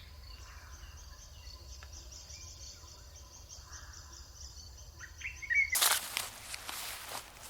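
Outdoor rural field ambience: faint high chirping and a few small bird calls. About six seconds in, a louder rustling noise runs for nearly two seconds.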